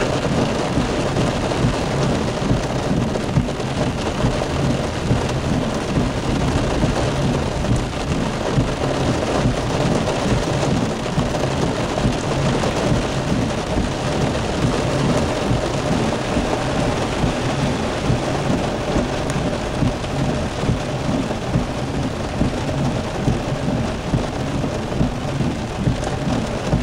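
Heavy rain falling steadily, an even dense hiss with no let-up.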